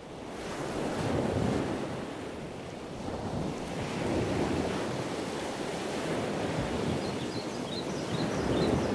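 Ocean surf washing on a beach, with wind buffeting the microphone, swelling and easing. A few faint high chirps come near the end.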